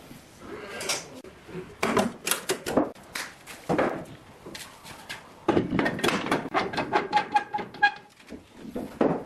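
Woodworking hand work: a run of sharp knocks and taps on wood, coming quickly, about four or five a second, in the second half, with a short squeak near the end.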